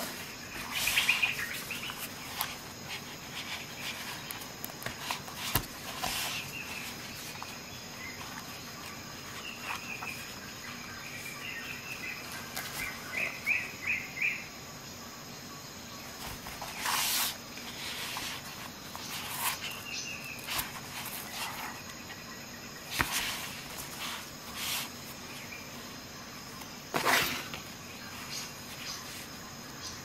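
Occasional brief rustles and scrapes of nylon multi-tool pouches and a metal extension bar being handled on a cardboard box, over background birds chirping and a steady high insect hum. About five rustles stand out, and a quick run of four chirps comes about halfway through.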